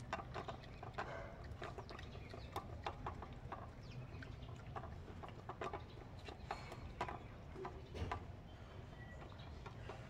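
Three puppies eating from a metal plate: a run of irregular small clicks and smacks from chewing and lapping, with food and muzzles knocking against the plate.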